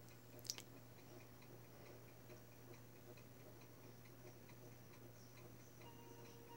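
Near silence: a faint, rapid, even ticking over a low steady hum, with one brief click about half a second in. Faint tones of the DVD menu music come in near the end.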